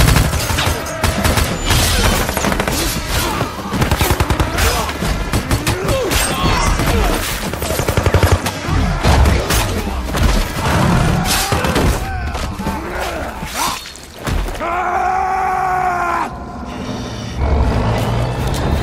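Action-film fight mix: gunshots and a dense run of hits and thuds, with grunts and cries, over a music score. There is a brief lull about fourteen seconds in.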